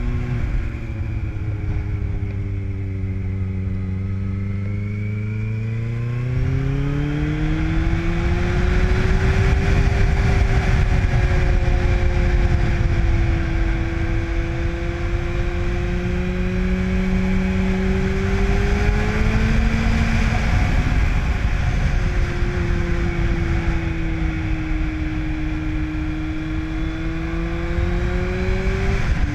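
2005 Yamaha FZ1's inline-four engine running through a Dan Moto aftermarket exhaust, heard from the bike under way with wind rush. The revs fall away for the first few seconds, climb as the bike accelerates, hold fairly steady, then dip about twenty seconds in and once more near the end.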